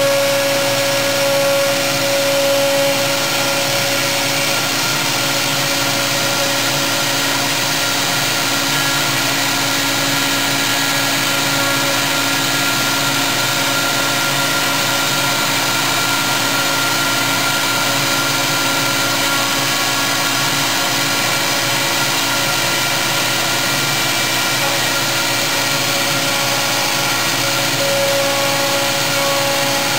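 CNC router spindle running with its end mill cutting a solid block: a steady machine whine over cutting noise. A stronger tone comes in at the start and again near the end.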